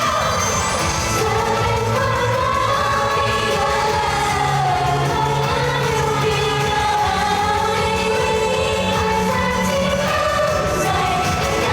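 Pop song with female group vocals singing a melody over a backing track with a steady bass line, played live over loudspeakers.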